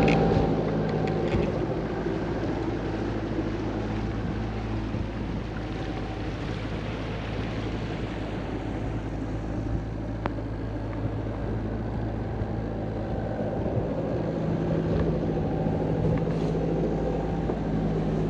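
A Gulfstar 40 sailboat's inboard diesel engine running steadily as the boat motors upriver against the current: a constant low drone with an even hiss over it.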